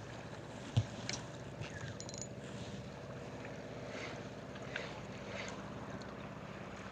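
Steady low drone of a boat motor running, with a sharp knock just under a second in and a few light ticks.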